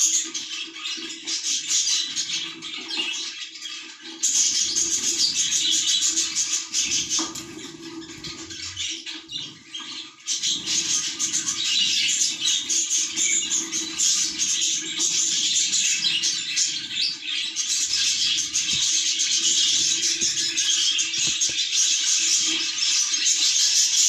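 Budgerigars chattering and chirping in a dense, continuous warble, easing off for a few seconds before the middle.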